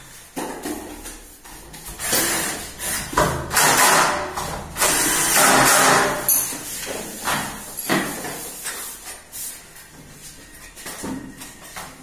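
Cordless drill running in short bursts against a wooden door frame, loudest from about two to six seconds in, with knocks and scraping from handling the wood and tools.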